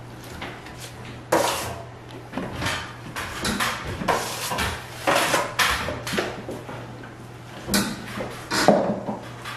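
Steel plastering trowel swiping and scraping across a wall as wet plaster is spread for the second coat, in a quick, irregular series of strokes about one or two a second. A low steady hum runs underneath.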